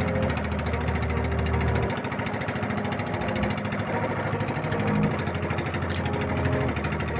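Small fishing boat's engine running steadily while the boat is under way.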